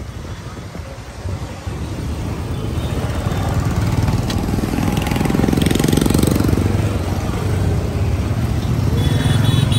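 Motor vehicle engine and road noise on the move, swelling a couple of seconds in and loudest near the middle.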